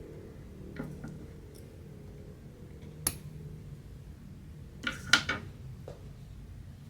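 A few small, sharp clicks and taps from hand cross-stitching: the needle, fabric and hoop being handled. There is a single click about three seconds in and a quick cluster of louder ones about five seconds in, over a low steady hum.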